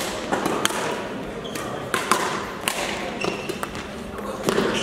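Badminton rackets striking shuttlecocks in a large sports hall: sharp, irregular cracks from several courts at once, with a few short squeaks of shoes on the court floor.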